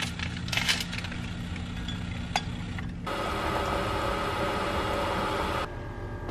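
Single-serve brewer dispensing hot water into a glass mug over a tea bag: a steady humming rush that starts and stops abruptly after about two and a half seconds. Before it come light clicks of handling, including one sharp click.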